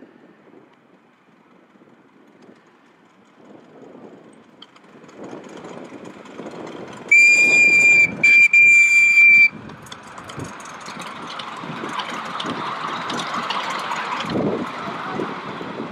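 Miniature steam locomotive's whistle blown in two blasts close together, one high steady note lasting about two and a half seconds in all. Around it the engine chuffs and hisses steam as it works past.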